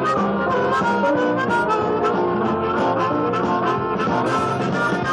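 A band's recorded song: full ensemble music with held melodic notes over a steady beat of drum hits.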